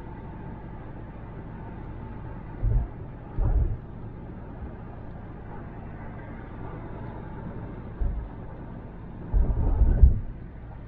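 Steady road and tyre noise heard inside a car at highway speed, with a few short low thumps, the longest cluster near the end.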